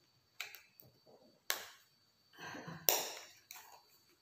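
Bluetooth headset packaging being handled and pried at while trying to open it: a handful of sharp clicks and crackles, the loudest about three seconds in.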